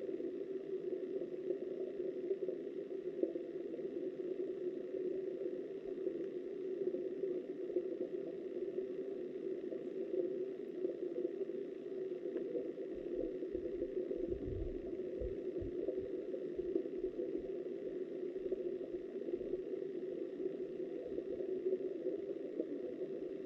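Steady, muffled rush of river current heard underwater, through a submerged camera's housing. A few low thumps come about halfway through.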